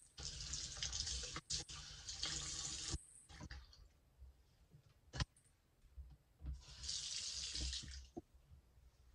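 Bathroom sink faucet running into the basin while a hand rinses and swishes the water around the bowl: a spell of running water for about three seconds, quieter splashing, a sharp click about five seconds in, then a second shorter spell of running water.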